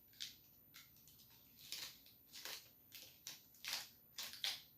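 Chewing of sautéed mussels close to the microphone: a string of short, soft, wet mouth clicks and smacks, about a dozen, at an uneven pace.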